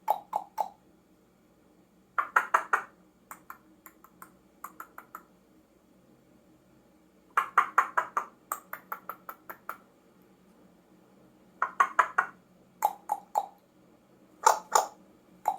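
Parrot clucking: quick runs of sharp clicks in groups of three to a dozen, with pauses of a second or two between groups.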